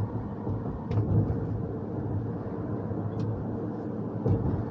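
Steady road and tyre rumble heard inside the cabin of a hybrid car cruising along, with a few faint ticks.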